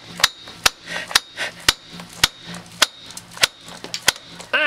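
A hammer striking a connector again and again, about two sharp blows a second, in a strength test of the joint where its screws are taking the force.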